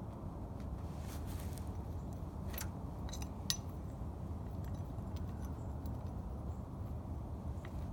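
Old metal spoon clinking and scraping against the floor while working flour into an oil stain: a few scattered clicks, the sharpest clink about three and a half seconds in, over a steady low background rumble.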